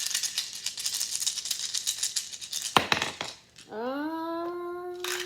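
Fast dry rattle of tarot cards being shuffled, then a sharp knock about three seconds in. A hummed note slides up and holds for the last second and a half.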